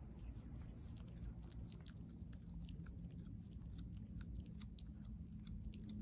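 A cat chewing and biting into a raw fish: a quick, irregular run of small clicks and crunches, over a low steady background rumble.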